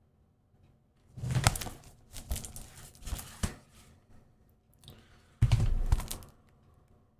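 Handling of a plastic Blu-ray case and its cardboard slipcover: irregular clicks and rustling from about a second in, then a louder rustle with a bump around five and a half seconds in.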